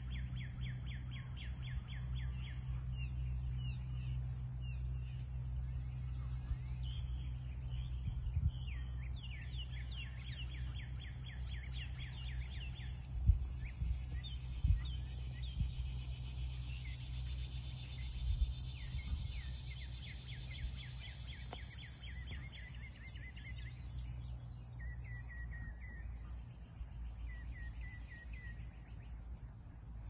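Outdoor ambience: repeated runs of rapid, high chattering or trilling calls, each run a few seconds long, over a steady low rumble, with a few soft thumps in the middle.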